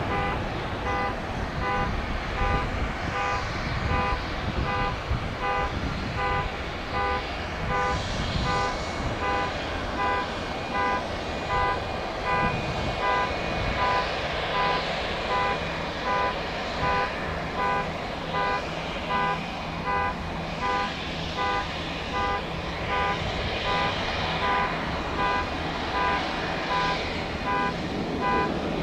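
A pitched electronic beep repeating about once a second over steady outdoor background noise.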